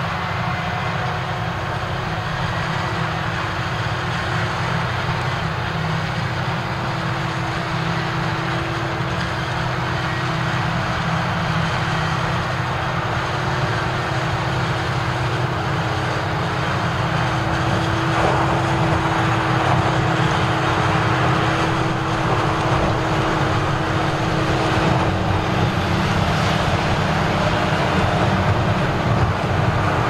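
Claas Jaguar forage harvester chopping maize and blowing it into a trailer, its engine and chopping gear running steadily, with the engines of the tractors alongside. A steady hum, growing a little louder in the second half.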